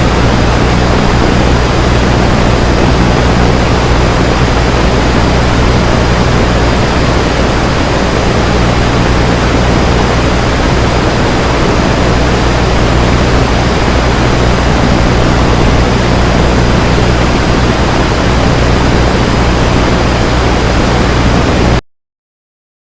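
Static from a broken radio: a loud, steady hiss with a low buzzing hum under it and a faint thin high whine. It cuts off abruptly near the end.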